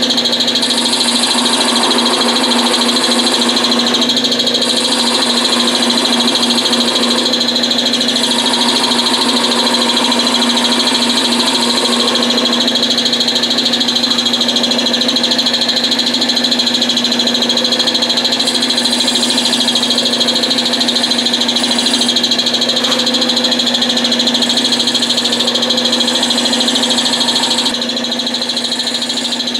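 Wood lathe running with a steady hum and a high whine, while a spindle gouge cuts the spinning bottle-stopper blank, the cutting heard as a hiss that comes and goes. The overall sound drops a little near the end.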